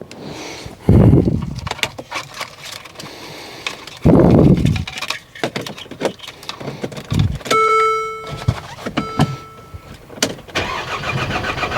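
Getting into a Mercedes-Benz CLA to start it: two heavy thumps, jangling keys and small clicks, and a dashboard chime beeping twice. Near the end the engine cranks and fires, a start that sounds rough and rattly, like an earlier CLA of the same model that had a blown engine.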